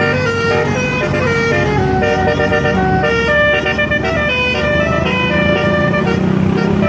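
Bus telolet horn, a basuri multi-tone musical air horn, playing a tune: a quick run of short held notes stepping up and down in pitch, over the low rumble of the bus engine running.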